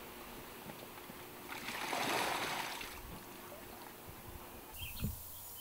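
Water pouring and splashing out of a plastic bag into the lake for about a second and a half, starting about a second and a half in, as a caught lake trout is released from the bag.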